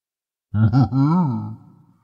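A deep, voice-made cyclops vocalization: one short low cry about half a second in, its pitch bending up and down before it trails off.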